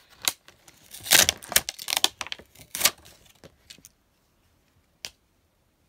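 A plastic toy and its packaging being handled: a rapid run of clicks, rattles and crinkling rustles for about three and a half seconds, then a single click about five seconds in.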